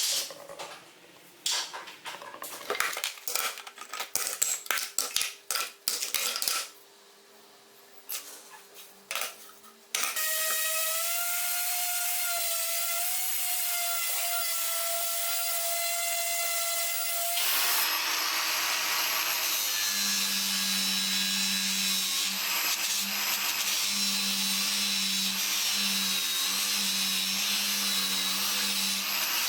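Scattered knocks and clicks of tools and parts being handled for about ten seconds. Then a power tool motor starts and runs at a steady pitch for about seven seconds. It changes to a second steady motor run with a lower hum under a high whine.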